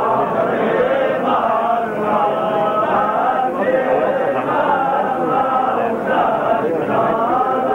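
A crowd of men chanting together, many voices overlapping in long, wavering held notes without a break.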